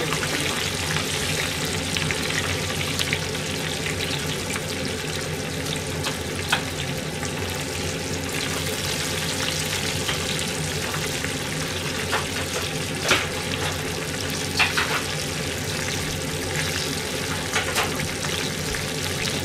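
Food deep-frying in a pot of oil at low temperature: a steady sizzle with a few sharp pops, the loudest about 13 seconds in.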